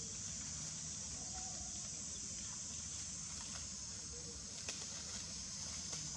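Outdoor ambience of macaques moving about on dry leaf litter and branches: a steady high hiss with faint patter and a few small clicks, and a couple of faint brief squeaks.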